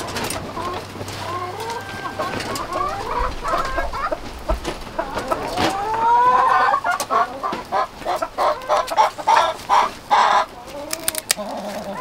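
Chickens clucking: drawn-out calls that bend up and down in pitch, then a quick run of short clucks, about three a second, in the second half.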